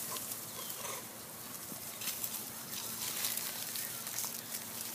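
Dry fallen leaves rustling and crackling, with scattered short sharp crackles.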